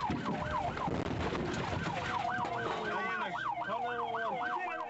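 Siren in a fast yelp, its pitch sweeping up and down several times a second. About three seconds in, a second overlapping siren pattern joins it. A rough noisy clatter runs under the first two seconds.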